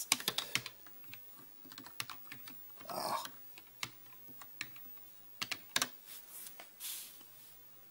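Keys pressed one at a time on a TRS-80 Color Computer keyboard, slow, scattered clicks of someone typing a command. Near six seconds come two sharper clacks, the last keys and Enter.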